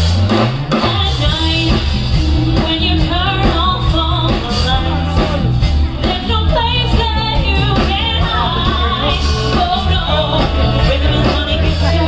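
Loud live stage-show music with a woman singing over a heavy bass beat, played through a theatre sound system and heard from the audience.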